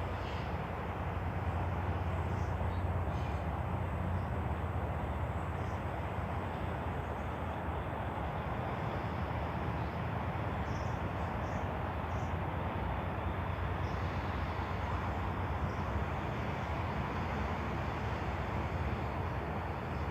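Steady low rumble of distant city traffic, with a few faint, brief high chirps above it.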